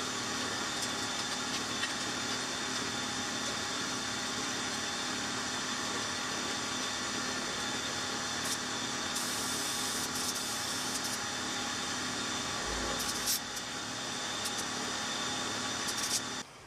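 Air compressor running steadily while inflating a motorcycle tyre to 40 psi, with an even mechanical hum and hiss. It stops abruptly near the end.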